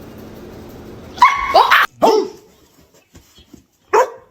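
Barking: three short barks in quick succession a little over a second in, then a single bark near the end.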